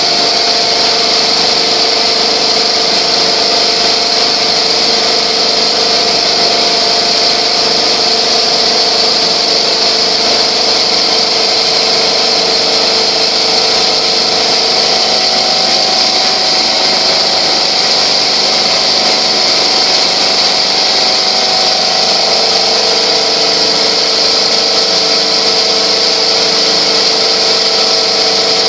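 Multi-head, multi-needle quilting machine running at high speed: a loud, steady mechanical whirr with a hissing top and a faint steady hum underneath.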